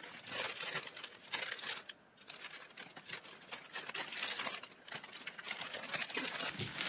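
Paper packaging rustling and crinkling as a parcel is unpacked by hand. There is a brief lull about two seconds in, then steadier handling toward the end.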